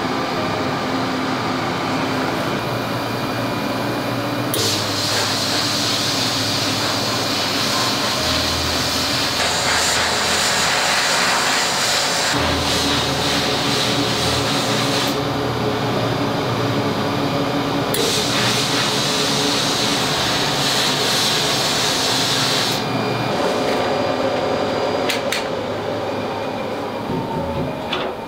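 Abrasive blast cabinet running with a steady machine hum, its air-blast nozzle hissing in long blasts: one from about five seconds in to about fifteen seconds, then another from about eighteen to twenty-three seconds. A few clicks near the end.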